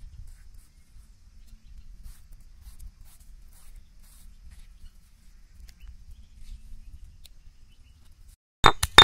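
Faint scraping of fingers gathering ground coriander-and-chilli paste on a stone grinding slab (ammi). Near the end comes a quick run of loud, sharp clinking knocks.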